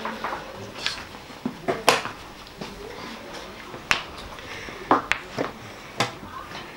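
Sharp clicks and knocks of chess pieces being picked up and set down on a board, with the tap of a chess clock, scattered irregularly over a low murmur of voices.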